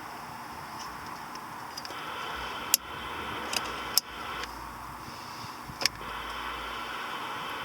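Several sharp clicks of CB radio and SWR meter switches and knobs being worked, a few about a second apart through the middle, over a steady hum.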